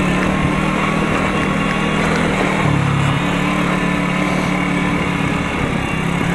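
Small motorcycle engine running under way at a steady speed, its note dipping briefly about two and a half seconds in. The rider feels it is short of fuel.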